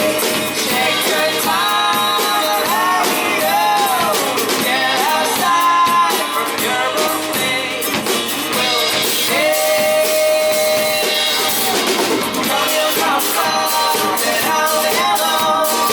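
A rock band playing live in an unplugged acoustic set: a sung vocal line over guitar, bass and drums with a steady beat.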